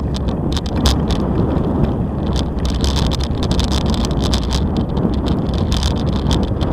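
Bicycle rolling along a concrete-slab track: a steady low rumble of the tyres on the slabs, with frequent irregular clicks and rattles.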